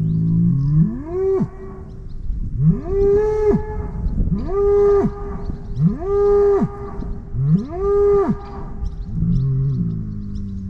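Cattle mooing over and over: five calls about a second and a half apart, each rising in pitch, holding briefly and then breaking off. A lower, flatter moo comes at the start and again near the end.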